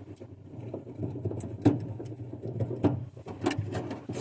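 Scattered clicks and light knocks of screws being driven out and a plastic refrigerator panel being handled, over a steady low hum.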